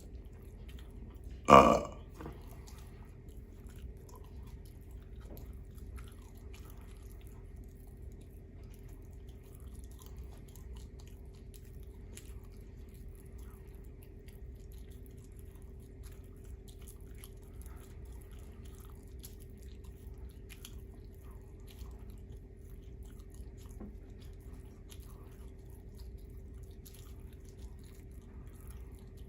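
One short, loud human burp about a second and a half in. After it come faint scattered chewing and mouth clicks over a steady faint hum.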